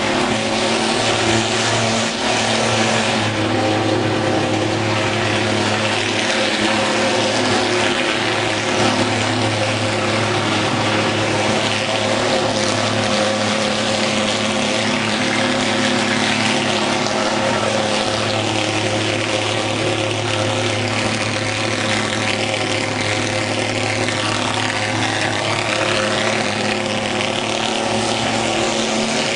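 Portable thermal fogging machine running continuously while it discharges fog, a loud, steady buzzing drone that holds one pitch.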